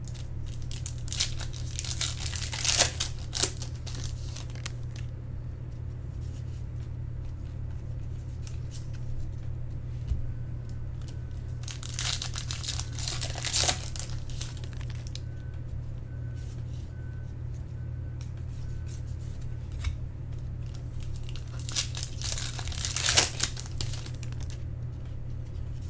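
Foil wrappers of baseball card packs being torn open and crinkled, in three short bouts of ripping and rustling, over a steady low hum.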